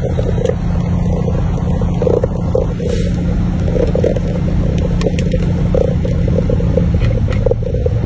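Semi-truck's diesel engine running, heard from inside the cab as a steady low rumble; the engine note drops lower about seven seconds in.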